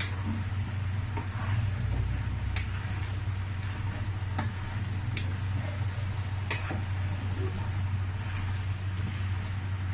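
Kitchen cooking sounds: a steady low hum with scattered light clicks and knocks of utensils against the pot of plantain porridge.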